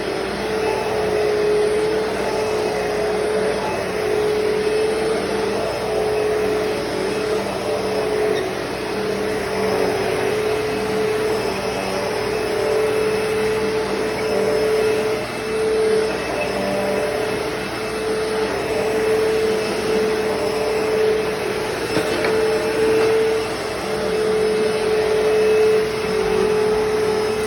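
Hoover Deluxe Elite Rewind upright vacuum cleaner running steadily while vacuuming carpet, its motor holding one steady hum with small rises and dips in level.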